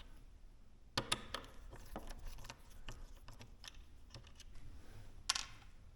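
Small metal hardware and hand tools being handled: a scatter of light clicks and taps, with a cluster about a second in and another just past five seconds.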